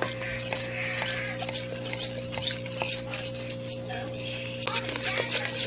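Metal fork stirring flour into a wet batter in a stainless steel bowl, scraping and clinking against the bowl with many light clicks.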